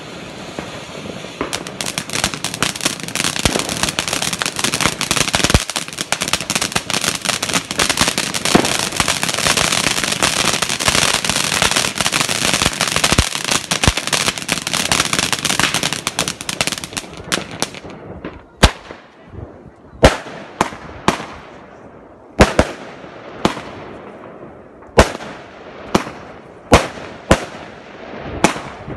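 Fireworks going off: a dense, continuous crackle of many small bangs for most of the first seventeen seconds, giving way to a series of separate loud bangs about once a second.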